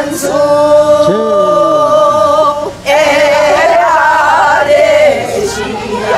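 A group of women singing a Korean folk song together without accompaniment, holding long notes and then singing wavering, ornamented lines. The singing breaks off briefly for a breath nearly three seconds in.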